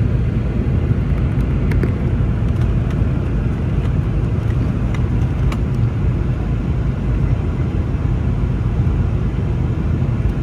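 Steady low roar of a Boeing 717's cabin during the climb just after takeoff, from its rear-mounted Rolls-Royce BR715 turbofans, with a few faint clicks.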